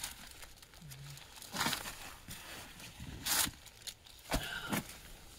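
Clothing and a bag rustling as a person handles and pulls on a garment, in a few short swishes, with a light knock a little after four seconds in.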